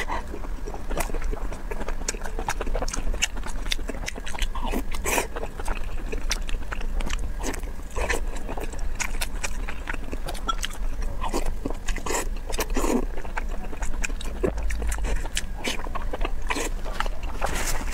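Close-miked biting and chewing of braised pork belly: a dense, steady run of short mouth clicks and smacks, over a faint low hum.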